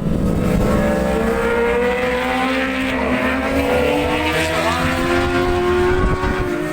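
A pack of superbike racing motorcycles accelerating hard past the track, several engines overlapping, their notes slowly rising in pitch.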